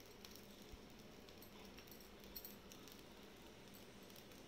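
Near silence: faint room tone with a low steady hum and a few faint small ticks.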